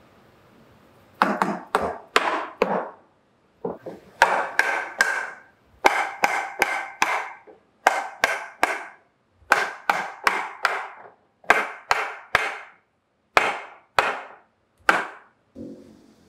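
Mallet knocking the joints of a wooden table frame home, about thirty sharp wooden knocks in quick runs of two to four with short pauses, each ringing briefly in the timber. The blows start about a second in, and a last softer knock comes near the end.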